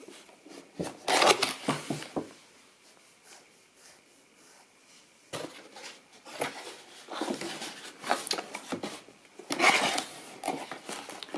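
Cardboard collector's box handled and its lid worked open by hand: bursts of card rubbing, scraping and tapping, with a quiet stretch in the middle and the loudest handling near the end.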